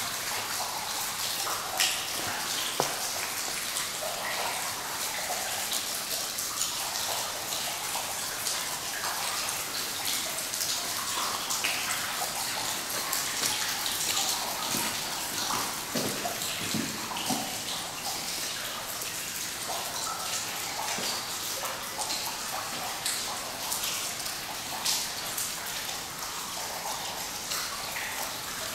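Water dripping and pattering from the ceiling of an old stone railway tunnel, many drops at once like rain indoors, with a few louder splats or knocks among them.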